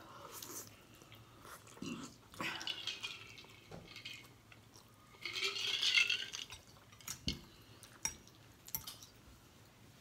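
Spaghetti being slurped up into the mouth and chewed, with two wet sucking slurps, the louder one about halfway through. A few light clicks of a fork against the bowl follow near the end.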